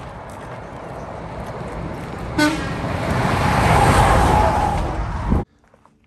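A vehicle approaching and passing at speed on a highway, its road noise growing louder, with a short horn toot about two and a half seconds in: a friendly honk in reply to a hiker's raised-fist pump. The sound cuts off suddenly near the end.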